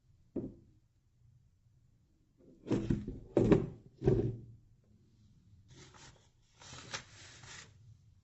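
Hard objects being knocked and set down: a light knock, then three loud thunks about half a second apart, followed by a couple of seconds of rubbing and scraping.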